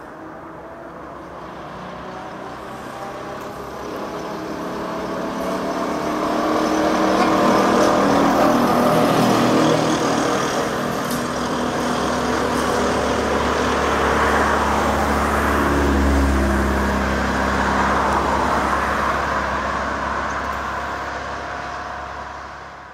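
ZiU-683B articulated trolleybus driving past close by: the whine of its electric traction motor rises in pitch as it speeds up, over tyre and road noise. It is loudest around the middle and fades away near the end, with a passing car adding a low rumble.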